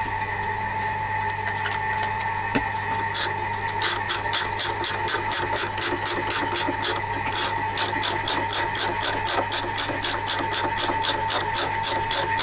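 A tap wrench being worked back and forth as a tap cuts threads into a cast iron flywheel. It gives a regular train of sharp clicks, about three a second, starting a few seconds in, over a steady machine hum.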